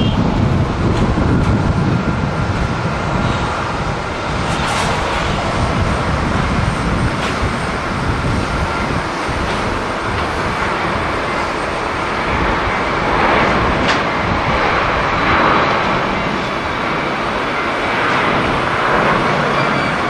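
Jet engines of a twin-engine widebody airliner at takeoff power during its takeoff roll: a loud, steady rumble, with gusts of strong wind buffeting the microphone.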